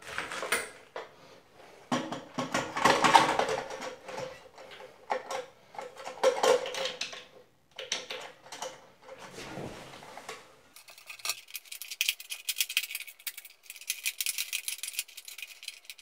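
A plastic dual flush valve being handled and fitted inside a ceramic toilet tank: irregular clicks, knocks and rattles, turning into a fast run of light clicking in the last few seconds.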